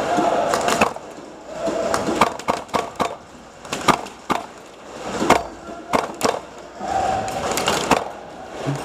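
A run of irregular sharp clicks and snaps, roughly a dozen, with stretches of rustling between them.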